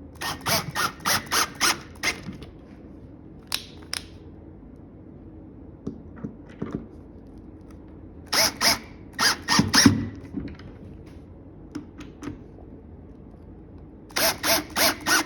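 Screws being driven into the cabinet's corner screw holes, squeaking in quick runs of about six squeaks at roughly four a second. There are three such runs, near the start, a little past the middle and near the end, with a few single squeaks between them.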